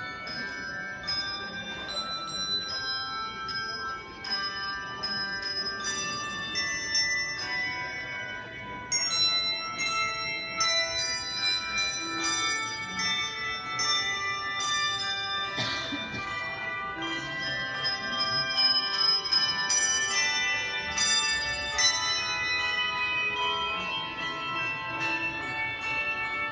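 Bells ringing in a quick, continuous run of struck notes, each ringing on and overlapping the next, growing a little louder about a third of the way through.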